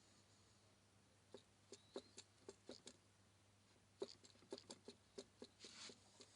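Irregular light metallic clicks in two bunches as a MeMZ-245 connecting rod is rocked by hand on its crankshaft journal, with a brief scrape near the end. The clicks are the free play of worn connecting-rod bearing shells, the cause of the engine's bearing knock.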